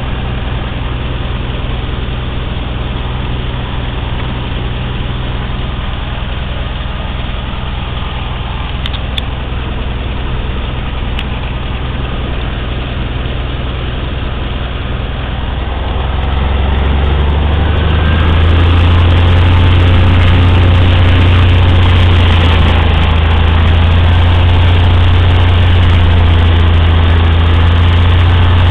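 Cessna 182's six-cylinder piston engine and propeller running at low power, heard from inside the cabin. About 16 seconds in it is throttled up, growing louder and deeper over a couple of seconds, then holds steady at the higher power.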